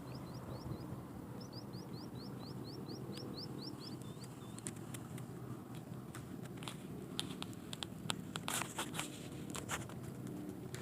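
A bird calling a quick series of short, high rising whistled notes, a few per second, over steady low outdoor background noise. Partway through, the calls give way to scattered sharp clicks and knocks, with a brief rush of noise near the end.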